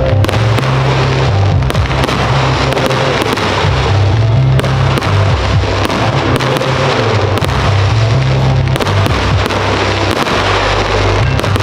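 A fireworks display firing continuously, with many sharp bangs and crackles from shells and comets in quick succession. Under it runs the show's music, with a heavy bass line.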